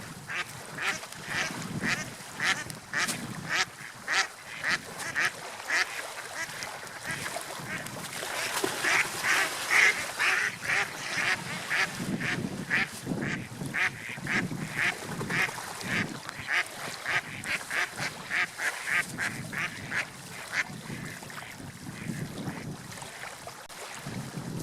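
Ducks quacking in a long, steady series of short calls, about two a second, over a low rush of wind and water.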